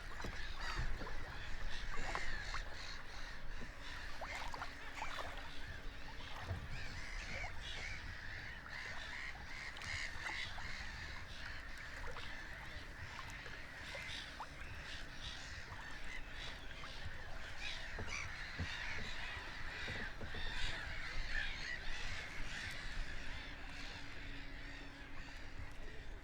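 A flock of birds calling continuously, a dense chorus of many short, overlapping calls.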